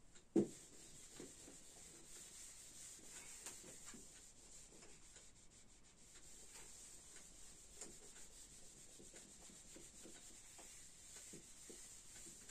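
A single knock about half a second in, then a handheld whiteboard eraser rubbing steadily and faintly across a whiteboard, wiping off marker writing.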